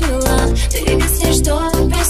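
Pop song playing: a steady beat with heavy bass under a gliding melody line.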